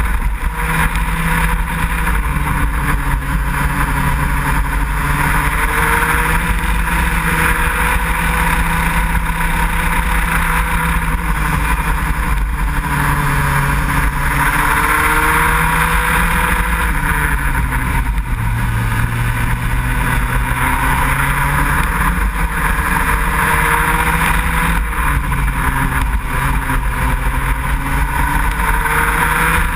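Racing go-kart engine heard from on board, running hard and loud without a break, its pitch rising and falling over and over as the kart speeds up and slows around the circuit.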